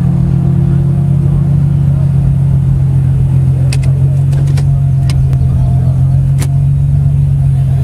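Infiniti G's V6 engine idling with a steady low drone, heard from inside the cabin. A few sharp clicks come between about four and six and a half seconds in.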